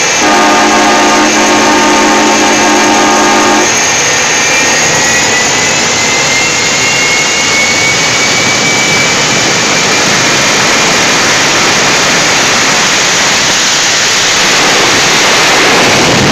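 Jet truck's turbojet engine running at high power with the afterburner lit, a loud, dense jet noise with a faint whine slowly rising in pitch. A steady pitched tone sounds over it for the first few seconds. Near the end the truck has launched and is running away down the drag strip.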